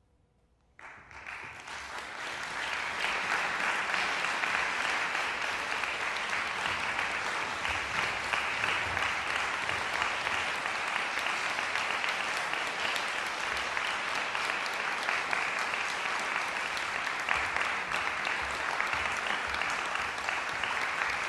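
Audience applauding: the clapping breaks out about a second in and builds within a couple of seconds to steady, sustained applause.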